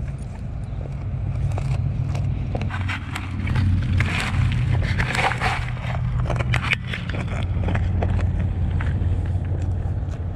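A dog crunching on a dried cow ear: crisp cracking and crackling clicks, busiest from about three to seven seconds in, over a steady low rumble.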